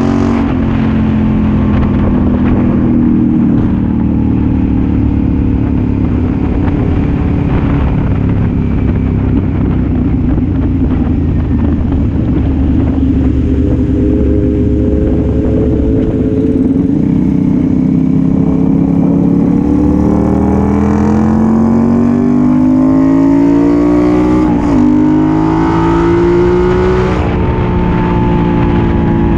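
Motorcycle engine with an aftermarket exhaust under way, heard from the bike itself over wind rush. The engine note sinks slowly at first, then climbs under acceleration from about two-thirds through, with a brief dip near the end.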